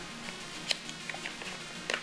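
Quiet background music, with two short sharp clicks of a cardboard sleeve being handled and opened, one about two-thirds of a second in and one near the end.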